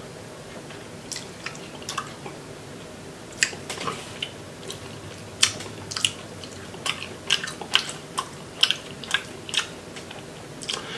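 Someone eating boiled crawfish: shells cracking and peeling, and wet chewing and lip smacks. These come as a string of short, sharp clicks that grows busier in the second half.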